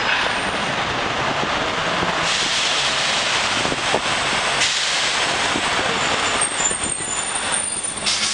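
Busy city street traffic: buses, vans and cars passing close by, a steady noise of engines and tyres on the road. A thin high squeal joins in briefly near the end.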